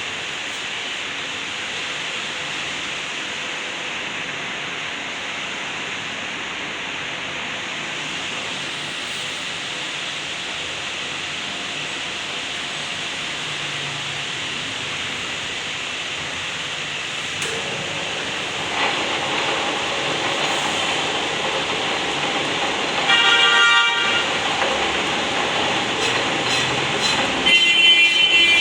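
Brake disc being turned on a manual lathe: a steady hissing cutting noise that grows louder about two-thirds of the way through, with a brief high-pitched squeal twice near the end as the tool cuts the rotor face.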